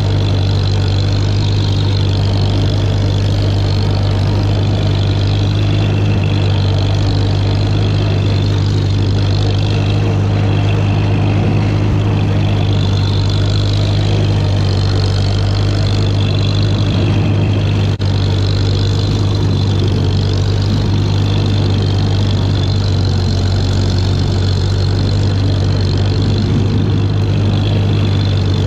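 1942 Farmall H tractor's four-cylinder engine running steadily under way, pulling a brush hog through tall grass. The sound dips briefly once, about two-thirds of the way through.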